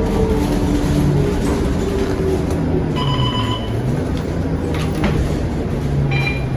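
Scania K230UB bus's diesel engine running, heard from inside the passenger cabin; its note dips and rises again about four seconds in. Two short electronic beeps sound over it, one about three seconds in and a higher one about six seconds in.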